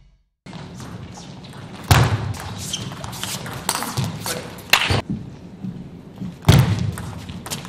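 Table tennis rallies: the ball clicking off bats and table in quick exchanges, with two louder thuds, about two seconds in and again near the end.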